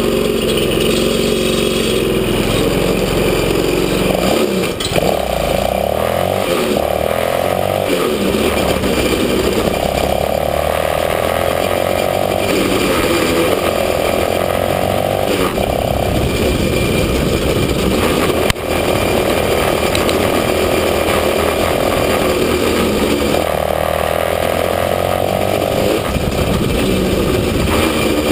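Small engine of a kids' Chinese ATV running under way, its revs rising and falling as the throttle opens and eases off.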